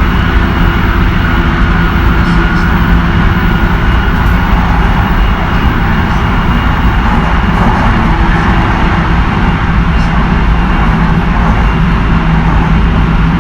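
Tsukuba Express 2000 series electric train running at a steady speed, heard from inside the car. A loud, even rumble of wheels on rail is joined by steady whining motor tones that stay at one pitch throughout.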